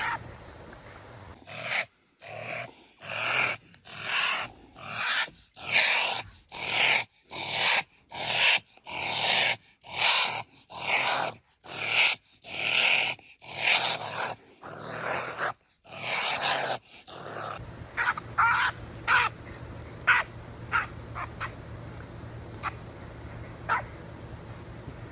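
Honey badger vocalising: a run of about twenty noisy calls in a steady rhythm, roughly three every two seconds. At about 17 seconds these give way to shorter, sharper calls at irregular intervals over a low steady hum.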